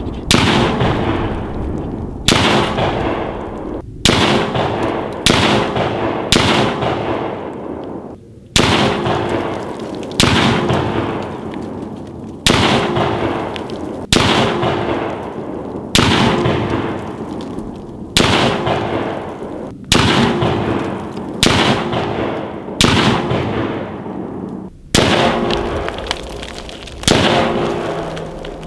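Rifle shots firing 62-grain ammunition, fired one at a time in a slow, steady string about every one and a half seconds. Each shot rings out and dies away before the next.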